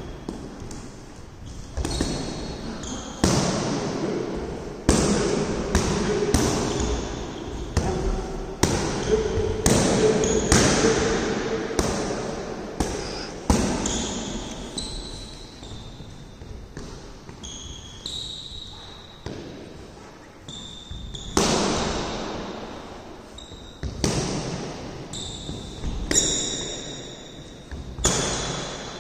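Boxing gloves hitting focus mitts: sharp slaps about once a second in irregular flurries, each echoing in the large hall, with short high squeaks between the hits.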